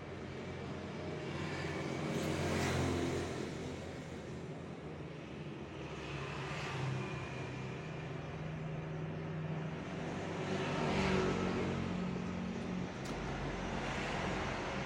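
A motor vehicle engine running with a low hum that swells twice as traffic passes, with a faint click near the end.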